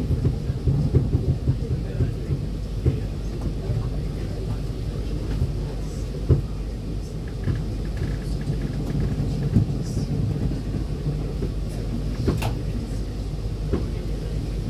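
E2-class tram heard from inside the passenger saloon while running along street track: a steady low rumble with frequent short knocks and clunks.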